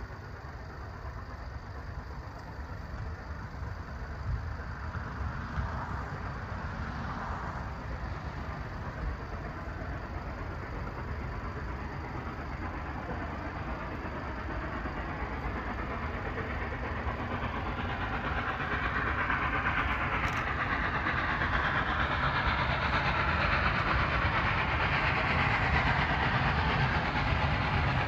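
A train approaching along the line, its running noise growing steadily louder.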